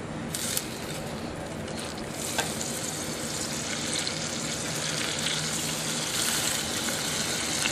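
A stick of butter sizzling as it melts down in a stainless steel saucepan over a burner, in a steady, even hiss. A couple of faint clicks come near the start and about two and a half seconds in.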